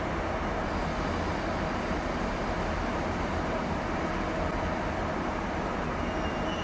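ICE electric train pulling slowly out of the station: a steady running noise from traction and wheels, with a thin high whine coming in near the end.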